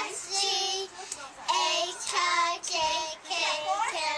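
Young children singing a song, with high voices holding and sliding between notes in short phrases.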